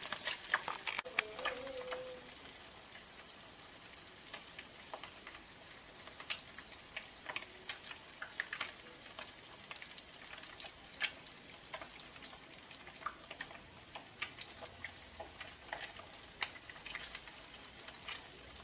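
Fish frying in hot oil in a wok: a steady sizzle with scattered sharp crackles and pops. In the first couple of seconds a metal spatula stirs in the pan, and the sound is louder and busier.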